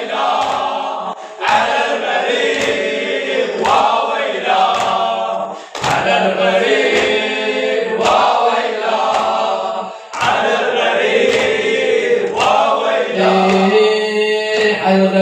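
Group of men chanting a Shia latmiya mourning refrain together, with sharp hand-on-chest slaps of latm at a steady beat of about one a second.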